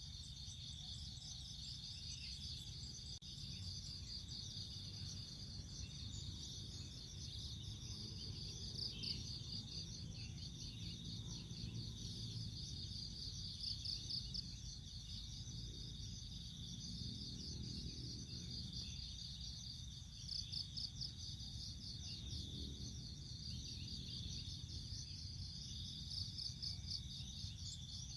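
Insects trilling continuously in fast, high-pitched pulsed chirps over a steady high whine, with a low hum underneath that swells now and then.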